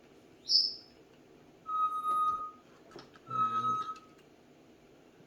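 High whistled notes: a quick upward chirp, then two held notes at the same pitch, each under a second long.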